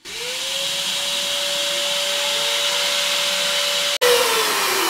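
Genmitsu trim router, working as a CNC spindle, starting up: a whine rises quickly and settles at a steady high pitch over a wide hiss. About four seconds in, a sudden break, then the whine falls in pitch as the router winds down.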